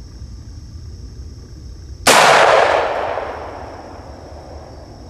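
A single gunshot about two seconds in, loud and then fading out over a second and a half. It is a follow-up shot to finish a wounded hog lying on the ground.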